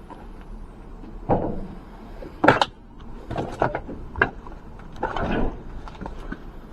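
Irregular knocks, clicks and scrapes from people moving over debris, with a sharp knock about two and a half seconds in and scraping shuffles before and after it.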